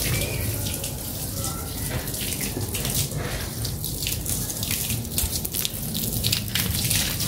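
Water running from a garden hose, spraying and splashing onto wet paving and a wire cage.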